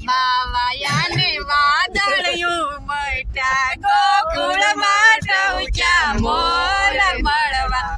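Adults and a child singing a song together in a car cabin, with a low rumble from the moving car underneath.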